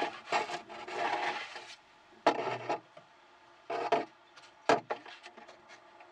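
A wooden stick rubbing and scraping against the keel stem tube inside a plastic model-yacht hull as it is worked free of freshly wetted fibreglass. A continuous scrape lasts nearly two seconds, then come three short, louder scrapes or knocks.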